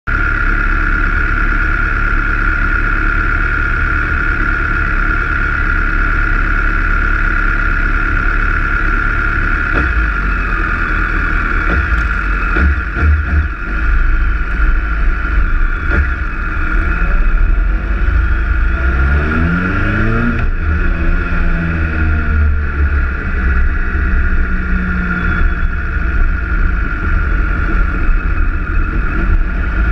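BMW K1300S motorcycle's inline-four engine running, heard from a fairing-mounted camera with low wind rumble and a steady high whine. The engine climbs in pitch through the gears as it pulls away, about two-thirds in and again near the end.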